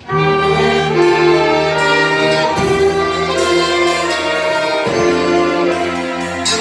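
A church orchestra with violins playing a hymn, coming in all at once and carrying on with full, sustained chords.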